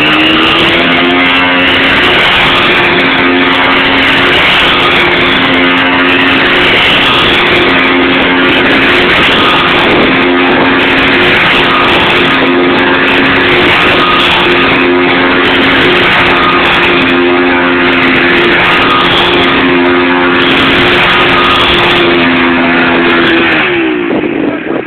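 Loud, distorted music with a repeating two-note pattern over a constant noisy roar, cutting off suddenly near the end.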